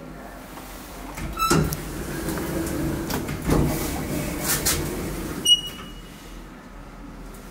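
KONE passenger lift in operation: a click about a second and a half in, then some four seconds of rumbling and rattling from the car and its sliding doors, cut off by a short high electronic beep.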